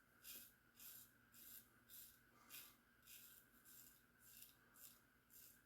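Faint, short scraping strokes of a 1901 Gem Junior single-edge safety razor cutting through lathered stubble, about two strokes a second.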